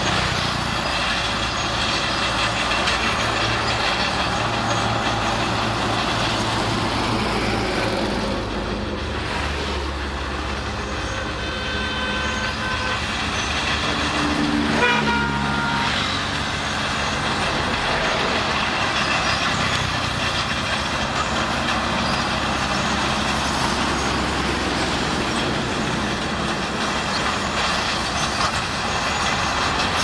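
Shantui SD16 crawler bulldozer's diesel engine running steadily under load as its blade pushes a pile of broken rock and dirt. A vehicle horn sounds briefly about halfway through.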